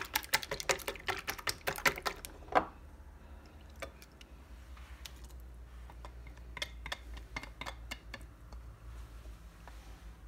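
A wire whisk beating eggs in a small ceramic bowl: fast clicking of the wires against the bowl, which stops about two and a half seconds in with a single knock. After that come fainter, scattered clicks and taps of the whisk against the bowl's rim as the beaten egg is scraped out.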